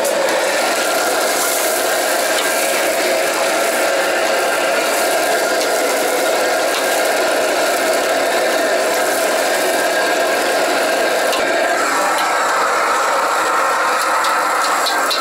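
Steady roar of a commercial gas wok range, with a metal ladle and spatula scraping and clattering in a wok as food is stirred. The pitch of the roar shifts about twelve seconds in.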